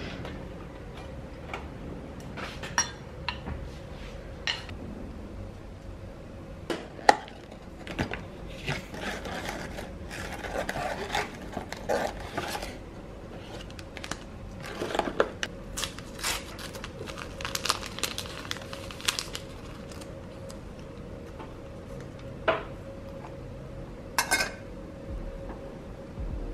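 Kitchen handling sounds: a drawer is pulled open, tea boxes are rummaged through, and glassware and dishes give scattered clinks and knocks, the sharpest about seven seconds in. A faint steady hum runs underneath.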